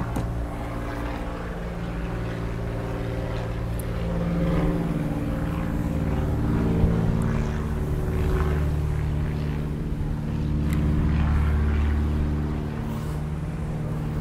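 Steady low motor drone with several pitched tones, swelling louder about a third of the way in and again about three-quarters through, with a single sharp tick about seven seconds in.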